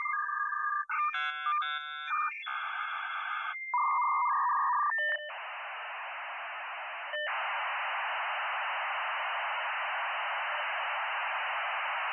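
Dial-up modem connection handshake: a series of dialing and answer tones and warbling chords of beeps, then a long stretch of even hissing static with a brief break partway through.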